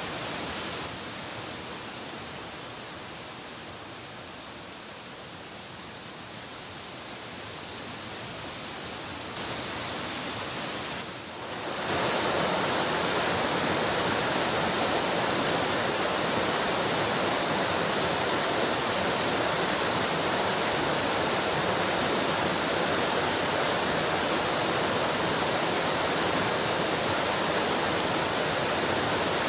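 Waterfall rushing: a steady wash of falling water, quieter for the first dozen seconds and then stepping up to a louder, even level about twelve seconds in.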